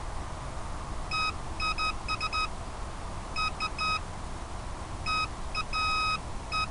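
Electronic beeps at a single pitch, short and long ones in irregular groups like Morse code, sounding over a steady hiss.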